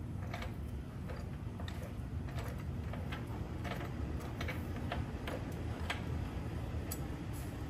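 Ratchet wrench clicking in short, irregular runs as a 17 mm socket turns a frame-slider bolt, tightening it into the motorcycle frame.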